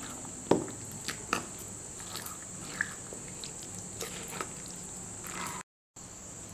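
A metal spoon stirring thick curd with chopped shallots in a stainless steel bowl: soft wet squelching with several light clinks of the spoon against the bowl, over a steady background hum. The sound cuts out briefly near the end.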